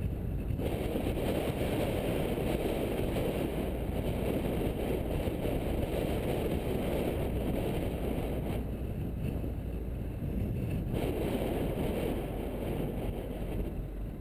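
Car driving along at a steady pace, heard from a camera mounted outside on the bonnet: a steady low rumble of tyre and road noise with wind buffeting the microphone.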